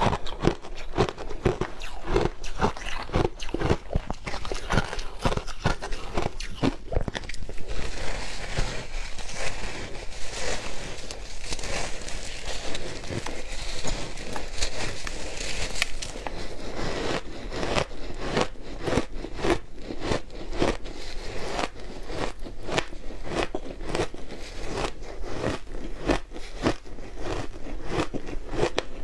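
Close-up crunching and chewing of shaved ice, with rapid irregular crackling bites that turn softer and hissier for several seconds in the middle.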